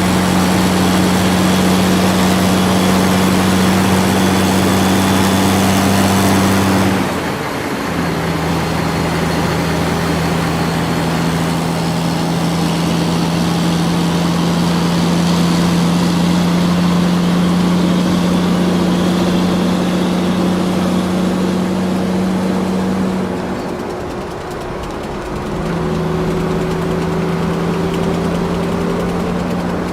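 Diesel engine of heavy earth-moving machinery running with a steady hum. The hum dips and changes pitch briefly about a quarter of the way in and again near the end before settling back.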